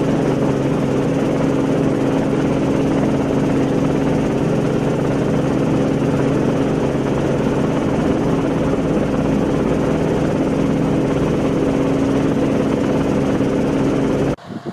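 Heavy diesel machinery of a self-propelled sugar beet harvester and a tracked tractor running at a steady working pitch, a constant engine drone. It cuts off suddenly just before the end.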